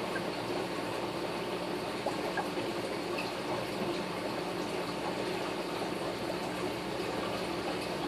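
Steady bubbling and trickling of aquarium water from an air-driven sponge filter.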